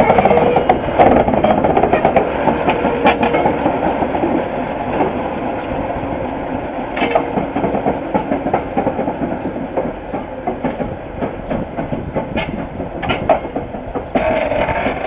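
Diesel-electric locomotive running and rolling along the track, a steady mechanical noise with scattered irregular clicks and knocks.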